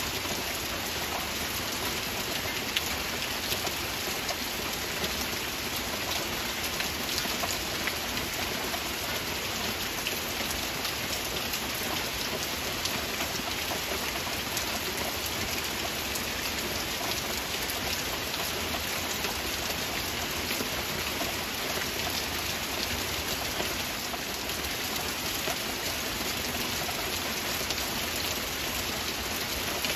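Heavy rain falling steadily, a dense patter of individual drops over an even hiss.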